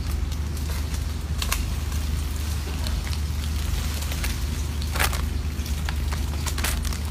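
Plastic snack wrappers crackling as monkeys rummage in a pile of packaged snacks and bananas: scattered sharp crinkles and clicks, the loudest about five seconds in, over a steady low hum.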